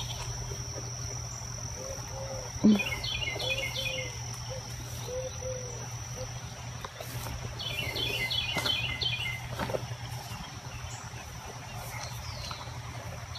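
Outdoor rural ambience: a steady high-pitched insect drone, with a songbird twice singing a short run of quick chirps over a low steady hum. A single knock about three seconds in.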